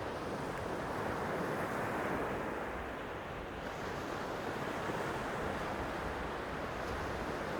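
Sea waves washing on the shore: a steady rush of surf that swells and eases gently.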